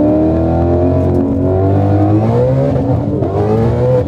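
Ford Mustang Shelby's V8 under hard acceleration from a 35 mph roll, its revs climbing steadily, heard from inside the cabin.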